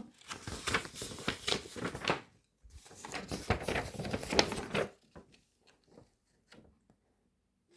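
Crinkling and tapping of a cross stitch kit's packaging being handled, in two spells of about two seconds each, then near silence for the last three seconds.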